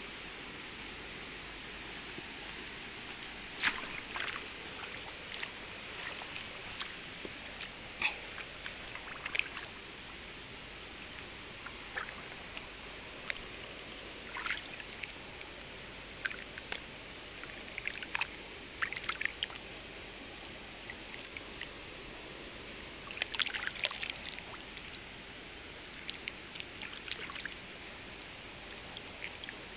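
A hand splashing and sloshing in shallow stream water, a scattered series of short splashes, over a steady background hiss.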